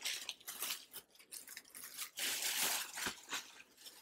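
Thin plastic bread bag crinkling and rustling as a loaf of French bread is slid out of it, in irregular bursts that are loudest a little past halfway through.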